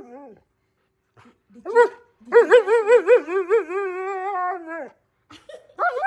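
Husky 'talking': a short call, then a long wavering howl-like whine whose pitch wobbles several times a second before levelling off and falling away, and a brief call near the end. The dog is vocalizing to demand food.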